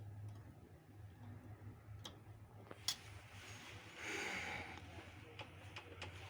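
Faint scattered clicks and taps, with a brief rustle about four seconds in, over a steady low hum.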